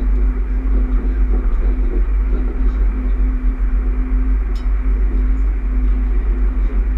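Steady running noise inside a Bombardier electric multiple unit under way: a deep rumble of wheels on track with a constant low hum.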